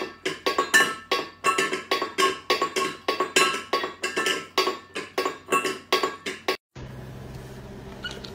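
A cat knocking a stainless steel food bowl against the floor, a rapid run of ringing metallic clanks at about four to five a second. It cuts off abruptly near the end, leaving a steady low hum.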